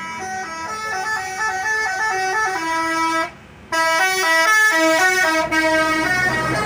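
Bus 'telolet' multi-tone musical horn playing a quick tune of short stepped notes. It drops out briefly just after three seconds in, then resumes.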